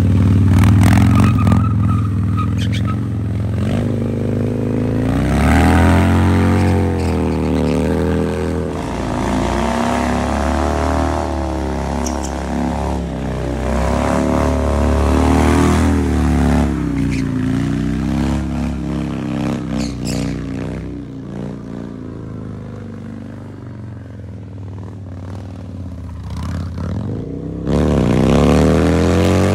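Harley-Davidson V-twin motorcycle revving hard and repeatedly, the pitch climbing and dropping again and again as the rear tyre spins on the asphalt in a smoky burnout. There is a final loud surge of revs near the end.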